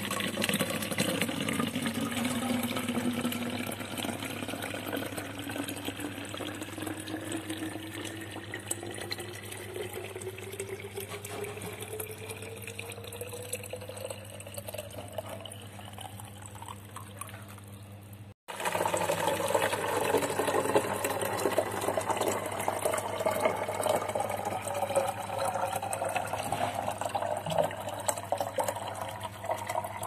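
Running water pouring into a bottle, the pitch rising steadily as the bottle fills. A little past halfway the sound cuts off for a moment, then a second, louder fill begins, again rising in pitch as the bottle fills up.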